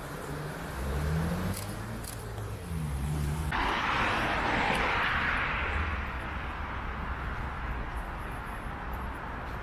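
City street traffic: vehicle engines running low with some rising and falling engine pitch, then a rush of vehicle noise that starts suddenly about three and a half seconds in and fades away over a few seconds.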